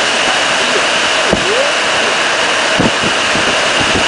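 Heavy storm rain driven by strong wind: a loud, steady hiss of rain with wind.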